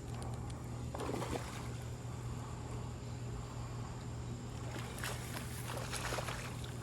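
Water splashing and trickling in short irregular bursts, about a second in and again near the end, as a big largemouth bass is brought in, over a steady low hum.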